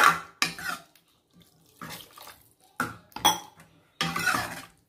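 Steel ladle stirring freshly added water into prawn gravy in a kadai: several short scrapes and clinks against the pan with liquid sloshing.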